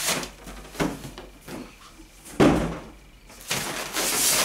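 Unpacking sounds: a cardboard box scraping as it is pulled off a polystyrene foam packing block, with a few knocks and one loud thump about halfway through, then foam and cardboard rubbing as the block is tipped over on a wooden table.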